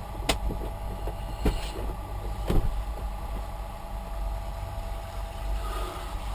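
Steady hum of a small electric fan running, with three sharp knocks or clicks in the first few seconds, the last the loudest.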